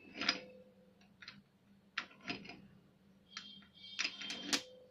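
Steel crimping dies being pulled out of and seated in the head of a hand-operated hydraulic crimping tool. It makes a series of sharp metallic clicks and clinks, some ringing briefly, with a busier cluster near the end.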